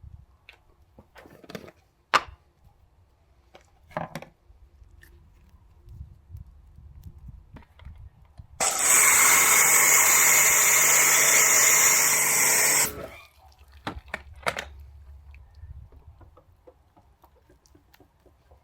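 A steady, loud hissing spray lasting about four seconds, starting and stopping abruptly, with scattered light knocks and clicks before and after.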